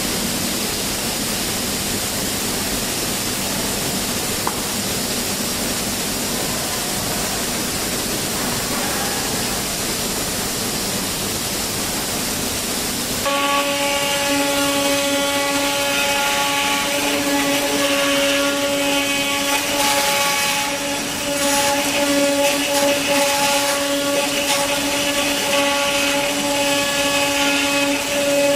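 Ruizhou CNC leather cutting machine running: a steady rushing noise, joined about halfway through by a steady machine whine with several tones as the machine starts working.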